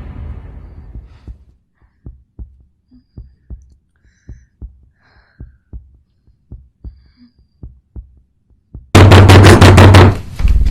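Heartbeat sound effect: soft, low double thumps about once a second. About nine seconds in, a sudden, very loud burst of rapid pounding strikes cuts in, lasts about a second, and is followed by another loud hit near the end.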